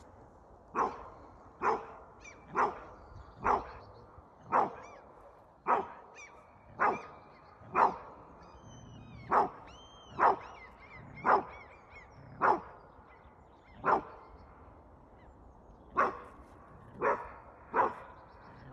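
Beauceron barking in single sharp barks, about one a second, with a pause of about two seconds near the end.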